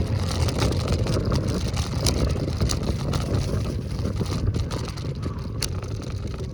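Steady low rumble of wind and road noise while riding an electric scooter, easing off slightly, with a couple of sharp clicks.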